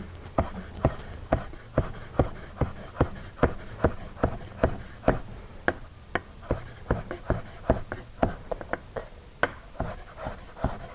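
Chef's knife mincing chives on a wooden cutting board: a steady run of knife taps against the board, about two or three a second.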